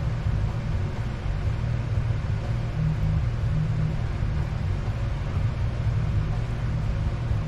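A steady low rumble that does not change.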